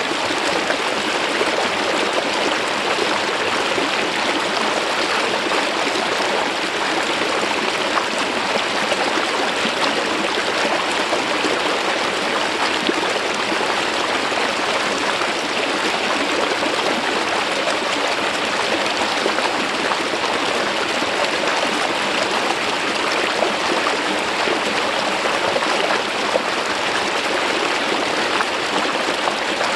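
Mountain stream water flowing smoothly over a rock face, a steady, even rush of water with no change throughout.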